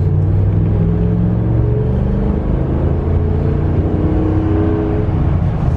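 Dodge Ram 1500's 5.7-litre Hemi V8 accelerating under heavy throttle, heard from inside the cab, its pitch rising and settling. Under heavy throttle the engine is firing on all eight cylinders rather than in its four-cylinder economy mode.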